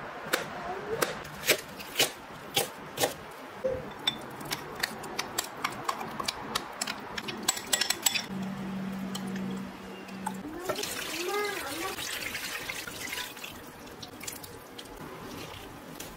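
Kitchen knife slicing king oyster mushrooms and green onion on a stainless steel board: a quick run of sharp clicks, several a second, through the first half. Later, liquid pouring and splashing into a bowl.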